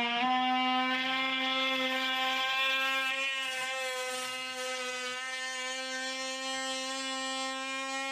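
Cordless DeWalt brushless oscillating multi-tool buzzing at one steady pitch as its blade cuts a 4-inch PVC sewer pipe off flush with a concrete floor.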